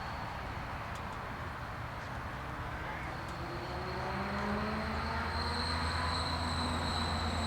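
A passing vehicle: a steady low hum with pitched tones slowly rising from about three seconds in, and a high steady whine that grows louder near the end.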